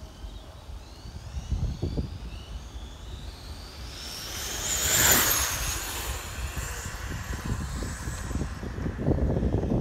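Brushless-motor RC car (a 2650kv four-pole Poseidon motor on a 4S LiPo) passing at speed: a high whine climbs in pitch as it comes in, is loudest about five seconds in, then fades as it goes away. Wind rumbles on the microphone throughout, stronger near the end.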